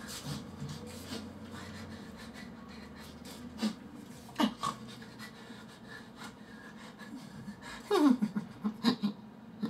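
A man's short, breathy huffs and pants: a few separate ones in the middle, then a quick run of pitched breaths falling in pitch near the end.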